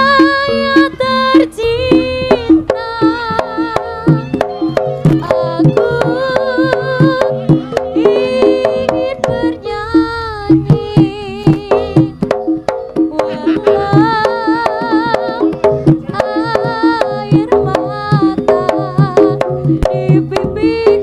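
Live jaranan gamelan music: rapid kendang hand-drum strokes and metallic beats under a wavering, sustained melody line.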